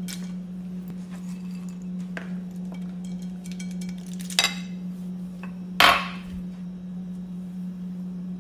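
Kitchen clatter: a few sharp knocks of hard things on cookware, two of them loud, about four and a half and six seconds in, the second with a short ring. Under them runs a steady low hum.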